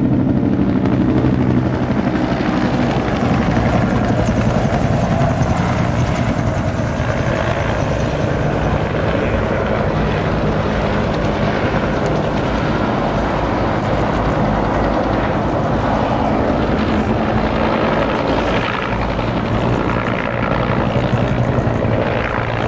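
Bell UH-1 Huey and AH-1 Cobra military helicopters flying overhead. Their main rotors make a steady, rapid chop.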